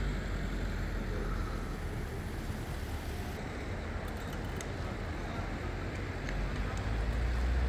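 Road traffic: a steady hum of vehicles with a low engine rumble, growing louder near the end as a vehicle comes closer.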